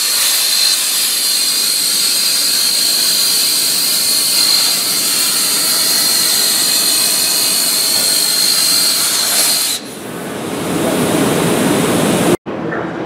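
CNC plasma torch cutting steel plate: a loud, steady hiss of the arc with a high whine held above it. About ten seconds in it changes abruptly to a lower, rougher machining noise from the machine's drilling spindle working the steel.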